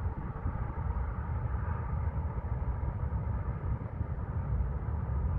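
Steady low rumble of outdoor background noise, with no single event standing out.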